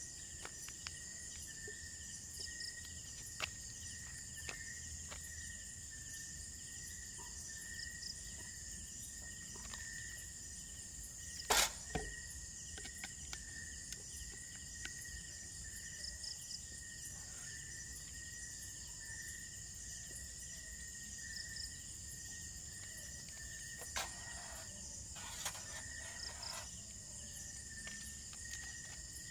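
Insects, crickets among them, chirring in a steady high-pitched chorus. A single sharp click about twelve seconds in is the loudest sound, and a few faint knocks come near the end.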